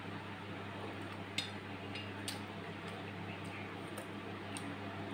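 A few short, sharp clicks and taps as fingers mix rice on a steel plate, the loudest about a second and a half in, over a steady low hum.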